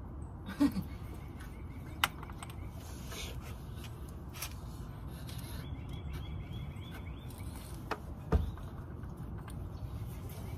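Steady outdoor background noise with four sharp knocks spread through it and, around the middle, a faint repeating high chirping.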